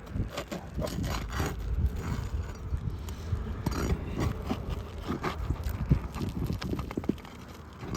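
Irregular knocks and scrapes as asphalt roof shingles are pried up and lifted.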